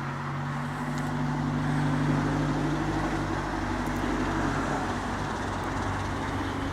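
A motor vehicle's engine with a low drone, growing louder over the first couple of seconds and then running steadily.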